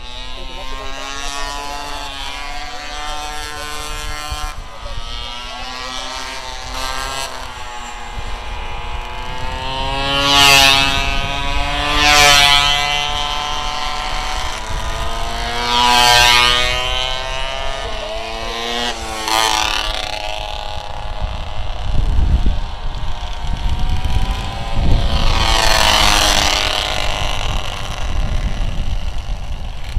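Small pocket-bike racing engines revving high and changing pitch as the bikes ride through corners, with about five close pass-bys that rise and fall in pitch.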